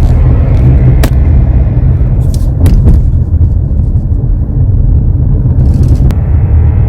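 Kia Sorento The Master with a loud, steady low drone while driving, the rpm-related noise that the Kia service centre put down to a fuel hose problem. A few sharp clicks come through about one, two and a half and six seconds in.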